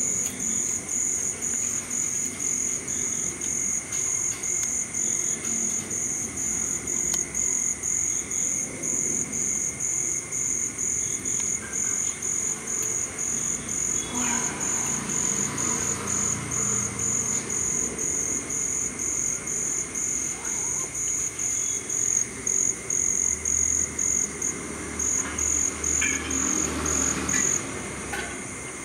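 Cricket chirping in a steady rhythm, about two chirps a second, stopping shortly before the end.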